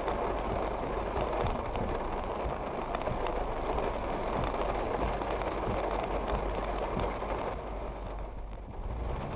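Heavy rain falling steadily on a car's roof and windshield, heard from inside the cabin as an even hiss, a little softer near the end.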